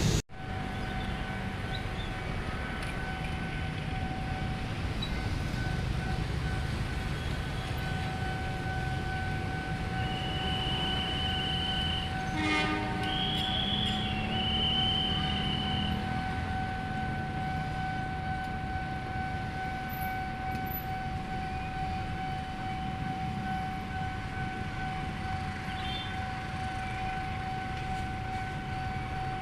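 Level-crossing warning alarm holding one steady tone while a train passes, its horn blowing for about six seconds around a third of the way in, over the low rumble of the train.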